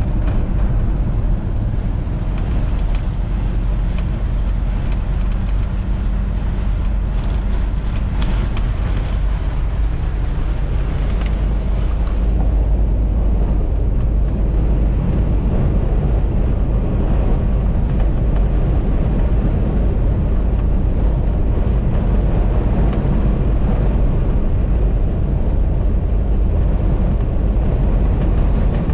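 Steady road and engine noise of a car at highway speed, heard from inside the cabin, with a strong low rumble. A brighter hiss with scattered ticks fades out about twelve seconds in.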